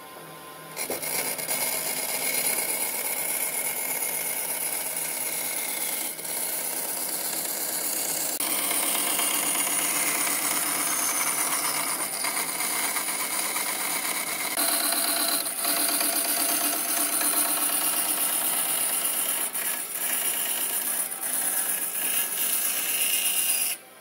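Band saw running and cutting through a thick pine board, a steady loud rasp of the blade in the wood. It starts about a second in, shifts in tone a couple of times, and cuts off sharply just before the end.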